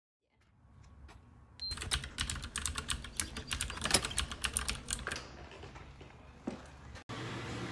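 A rapid run of light clicks and taps, dense for a few seconds and then thinning out. Near the end it cuts to a steady low hum.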